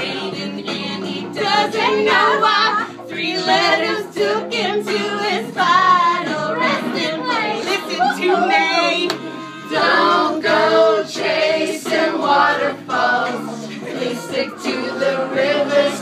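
Music with several voices singing at once over steady held backing notes, like a small crowd singing along.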